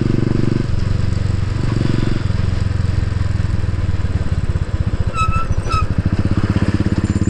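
Royal Enfield Bullet's single-cylinder engine running at low speed with a slow, even thump. The engine note drops about two seconds in as the throttle is eased, then picks up again near the end. Two short high beeps sound about five seconds in.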